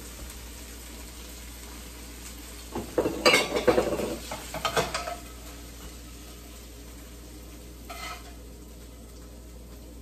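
Kitchen utensils and a skillet clatter and scrape in a burst of knocks lasting about two seconds, a few seconds in. A single short knock follows near the end.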